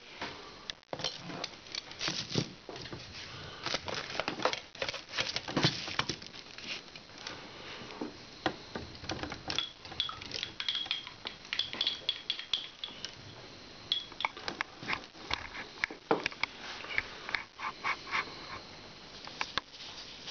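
Many small, irregular clicks, taps and scratching of Lego plastic parts and a paintbrush being handled as the brush is fitted into the machine's brush holder, with a faint high squeak for a few seconds about halfway.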